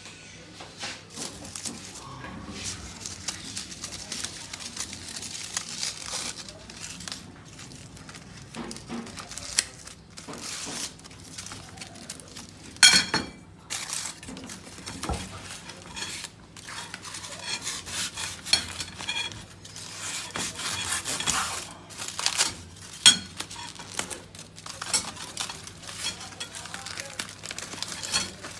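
Cooking-prep handling sounds: metal pots and utensils clattering, scraping and rustling, with two sharp loud knocks about 13 and 23 seconds in.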